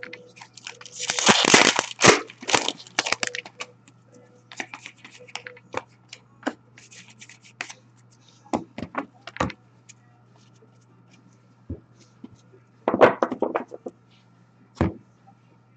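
Hockey card pack wrappers being torn open, with a longer tear about a second in and another near the end, and short clicks and rustles of cards being handled between.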